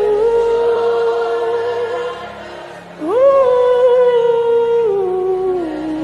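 Worship music: a voice sings long, wordless held notes over a soft, steady low backing. The first note fades out about two seconds in. Another starts about a second later with an upward slide, then steps down twice in pitch.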